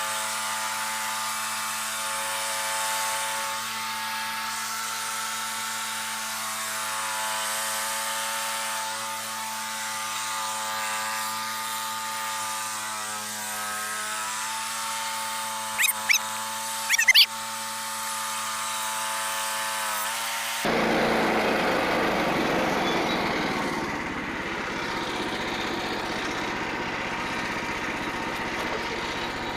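Frontier OS27 bandsaw mill's small gas engine running steadily while the blade saws through white oak, with a few sharp clicks a little past halfway. About two-thirds through, the sound changes suddenly to a rougher, noisier running.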